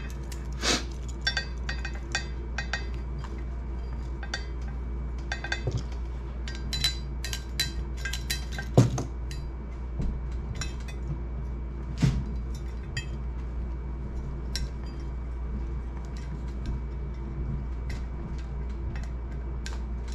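Safety wire and small hand tools clinking and tapping against a drilled steel brake rotor and its bolt heads as the wire is fed through and tucked in: clusters of sharp metallic ticks with a few louder knocks, over a steady low hum.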